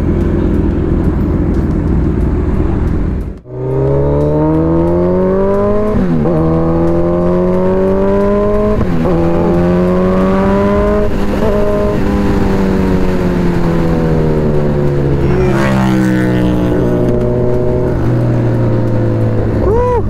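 Suzuki Hayabusa's inline-four engine heard from the rider's seat, pulling hard up through the gears: the note climbs and drops back at each upshift a few times, then holds fairly steady and eases off. Before that there is a steady low drone, broken off sharply about three seconds in.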